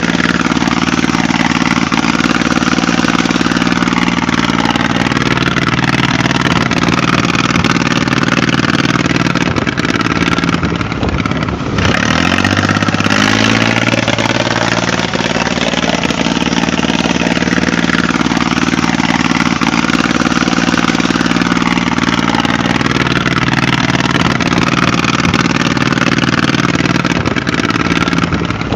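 An engine running steadily at a constant speed, like a tractor idling, with a brief dip about twelve seconds in after which the note drops lower for a couple of seconds.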